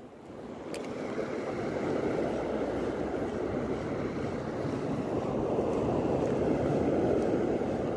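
Surf washing onto a shallow reef shore: a steady rushing that builds over the first couple of seconds and then holds.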